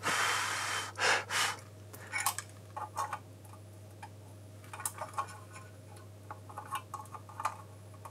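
Small clicks and taps from wire and a soldering tool being handled against an aluminium panel and jack socket while a wire is soldered to a potentiometer. A breath-like hiss sounds in the first second, and a steady low hum runs underneath.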